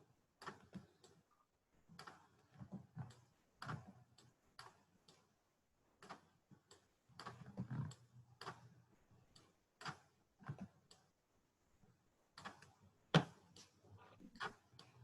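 Irregular clicking of a computer mouse and keyboard, in quick clusters with short gaps, over a faint low hum.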